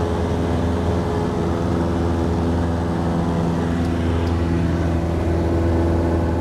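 Cessna 172 Skyhawk's piston engine and propeller running steadily during the climb-out after takeoff, heard inside the cabin as an even drone.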